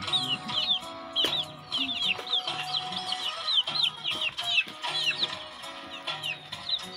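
Young chicks peeping over and over, short high falling peeps several a second, with background music underneath.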